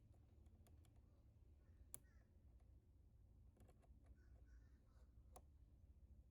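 Near silence: a low steady hum with a few faint, sharp clicks, the clearest about two seconds in and another about five seconds in.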